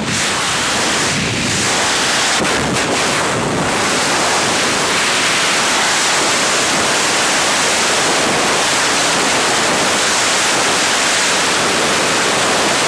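Freefall wind rushing over the microphone during a tandem skydive: a loud, steady blast of noise, with a few short buffets in the first four seconds.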